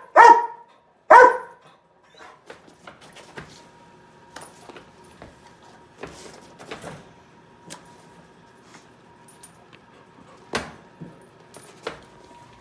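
A dog barks twice, loudly, in the first second and a half. Then come quieter scattered clicks and rustling of movement, with two sharper knocks near the end.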